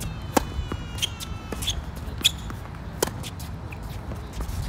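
A tennis serve and the rally after it on a hard court: sharp pops of racket strings striking the ball, with ball bounces, several times a second or so apart.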